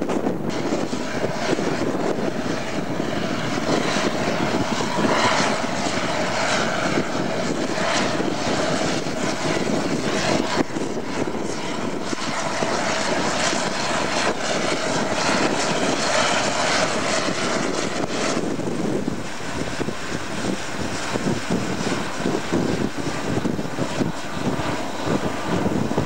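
Tractor diesel engine running steadily under load, pulling a plough through the soil. About two-thirds of the way through, the sound turns lower and rougher.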